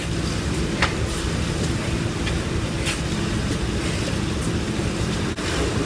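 Steady low rumbling noise with a faint hum, and a couple of faint taps about a second and about three seconds in.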